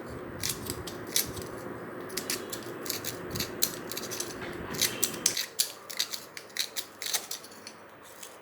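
Blunt knife scraping rust from the inside of a gas stove burner: a run of short, irregular metal-on-metal scrapes and clicks.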